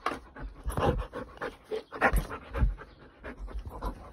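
Husky panting in uneven breaths.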